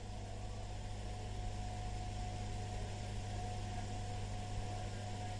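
Steady low electrical hum with a faint hiss and a thin steady higher tone: background noise of an old broadcast recording between recited verses.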